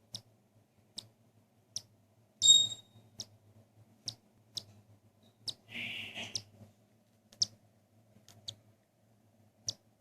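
Cockatiel chick peeping: short, high squeaks about once a second, with a louder clear chirp a couple of seconds in and a half-second hissing burst about six seconds in.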